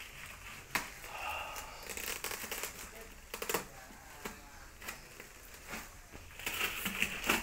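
Plastic bag wrapping crinkling and rustling inside a cardboard box as hands dig through the packing, with scattered sharp crackles; the crinkling is loudest near the end.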